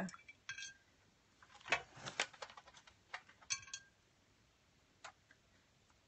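Several light, scattered clicks and clinks of a paintbrush knocking against the watercolour half pans in a metal palette tin as the brush is dipped into the paint, a couple of them briefly ringing.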